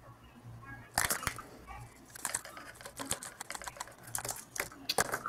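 Cardboard coin box's mechanism working: a run of irregular sharp clicks and rattles of cardboard, starting about a second in.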